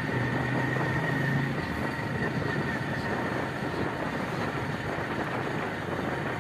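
A vehicle in motion on a paved road: steady road and wind noise, with a low engine hum that fades about a second and a half in.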